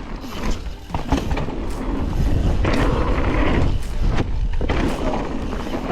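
Mountain bike being ridden: a heavy rumble of wind on the microphone and tyres rolling over the ground, with scattered knocks and rattles from the bike.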